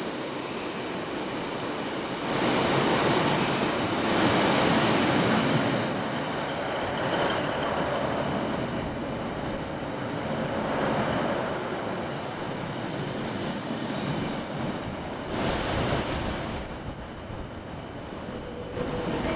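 Class 156 diesel multiple unit running past slowly along the platform, its underfloor diesel engines and wheels on the rails loudest a few seconds in as the front draws level, then easing off as it moves away under the station's overall roof.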